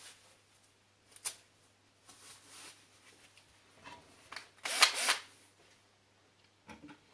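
Tool and workpiece handling at a workbench: a sharp click, some rustling, then a brief loud clatter about five seconds in and a small knock near the end.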